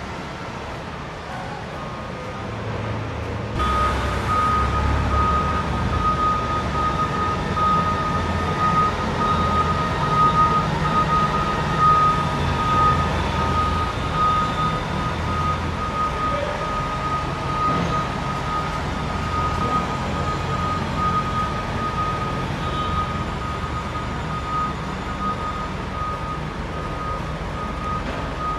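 Engine of a Liftking rough-terrain forklift running, getting louder about three and a half seconds in. From that point a steady high-pitched warning alarm sounds along with it.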